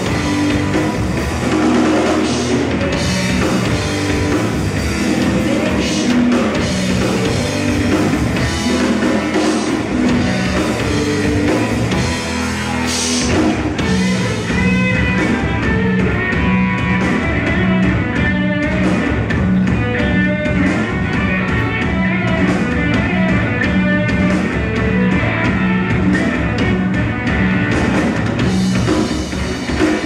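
Live rock band playing: electric guitar, bass guitar and drum kit, with a woman singing into a microphone.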